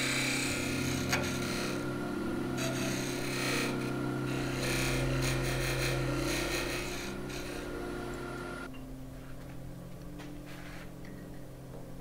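Wood lathe spinning a spalted maple spindle blank while a turning tool smooths it, giving a steady motor hum under a scraping, hissing cut. The cutting noise stops about nine seconds in, leaving a fainter hum.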